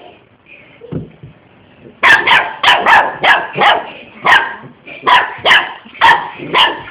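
A dog barking: a rapid run of about a dozen loud, sharp barks, two to three a second, starting about two seconds in. A dull thump comes about a second in.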